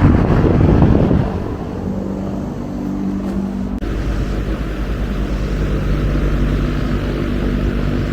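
Electric fan running with a steady motor hum and rush of air. A louder rushing swell fills the first second, and the sound shifts abruptly a little under four seconds in.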